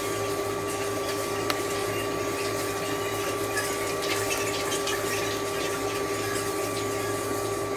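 Steady hum of a small electric motor, such as a pump or fan, at a constant pitch. A few faint ticks and scratches sit over it, with a sharp click about a second and a half in.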